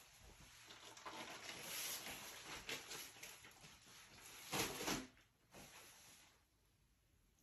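Plastic tarp rustling and crinkling as it is picked up, shaken out and draped over a plastic arch, with a louder rustle about two-thirds of the way through as it settles onto the arch.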